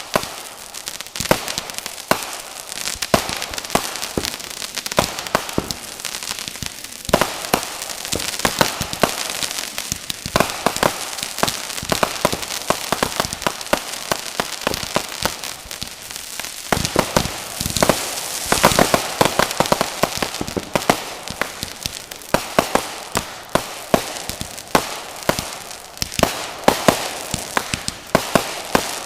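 Fireworks going off: a rapid, irregular string of sharp bangs and crackling, thickening into dense volleys about a quarter of the way in and again just past halfway.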